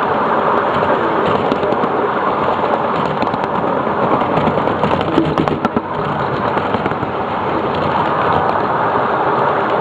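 A 7.5-inch gauge ride-on train running along its track, heard from aboard as a steady rumble and rattle. A scatter of sharp clicks and clatter from the wheels and cars comes thickest in the middle.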